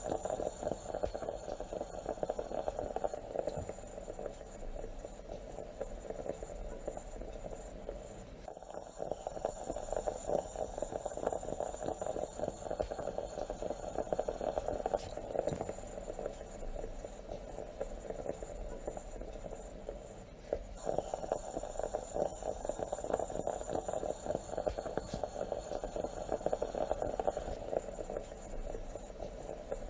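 Stovetop moka pot bubbling and sputtering steadily as the coffee comes up, a dense crackle that dips briefly twice.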